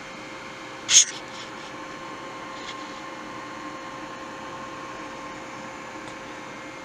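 Steady hiss of static from a CB radio receiver, with one sharp crackle about a second in and a faint steady tone coming through from about two to five seconds in.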